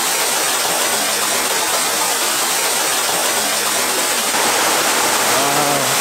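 Waterfall close at hand, a loud, steady rush of falling water. Near the end a person's voice sounds one drawn-out syllable over it.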